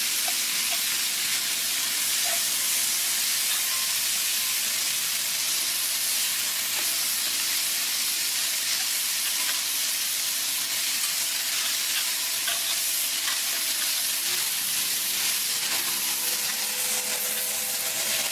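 Italian sausages, onions and green peppers sizzling steadily in a cast iron skillet over a fire pit, with a few small pops.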